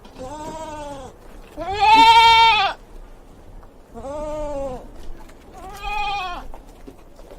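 A goat bleating four times, each call under a second long with a rise and fall in pitch; the second call is the loudest.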